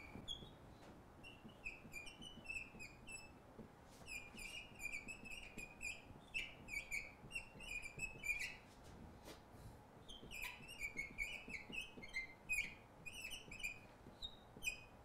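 Neon marker squeaking on a glass lightboard while an equation is written: runs of short, high-pitched squeaks with brief pauses between strokes, about a second in and again around nine seconds in.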